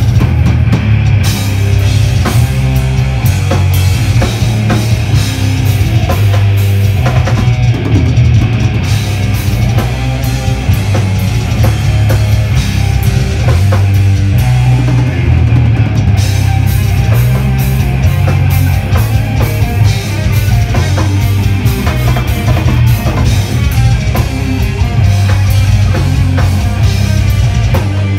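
Metal band playing live: distorted electric guitars and bass over drum kit, loud and continuous.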